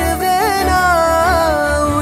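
Background music: a song's melody line held on long notes with short ornamented turns, over a low bass pulse.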